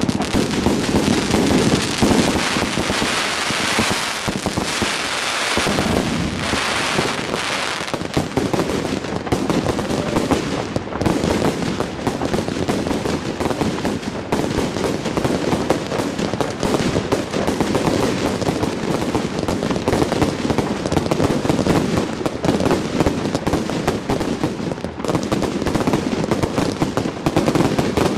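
Fireworks display: a dense, continuous barrage of bangs and crackling reports with no pause, hissing and crackling most in the first few seconds.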